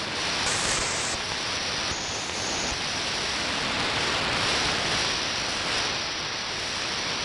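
Steady shortwave radio hiss from an SDR receiver's audio output, tuned to about 2.8 MHz with no signal coming through. The top of the hiss steps up and down a few times in the first few seconds as the receive filter width is changed.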